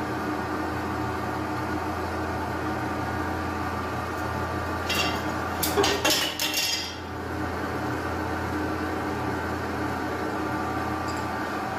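Wood lathe motor running with a steady hum. About five to seven seconds in there is a quick cluster of metallic clinks and clicks as metal tools are handled.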